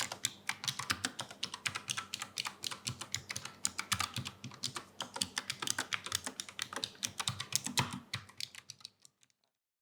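Gconic A75 low-profile mechanical keyboard with Brown tactile switches being typed on rapidly, a steady stream of keystroke clicks. The typing tapers off and stops shortly before the end.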